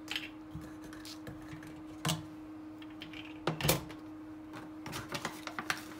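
Scattered light knocks and clicks of kitchen items being handled, the loudest about three and a half seconds in, with a run of small ticks near the end, over a steady low hum.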